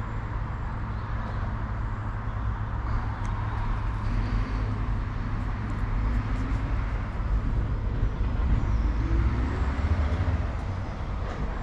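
Steady low outdoor rumble with a motor vehicle's engine passing. The engine note rises in pitch about halfway through and grows louder before easing off near the end.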